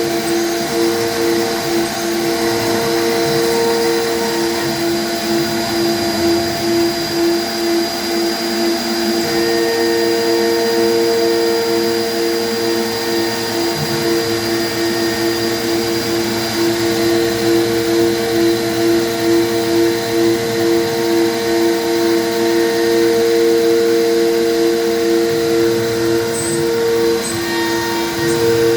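CNC router spindle turning an Onsrud two-flute upcut bit at 15,000 RPM, cutting polycarbonate panels: a loud, steady machine hum over a hiss. One of its tones drops out for about four seconds around five seconds in, and briefly again near the end.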